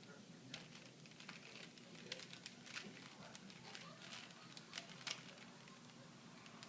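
Rubik's cube being turned by hand: a quick, irregular run of faint plastic clicks and rattles as the faces twist, thinning out after about five seconds.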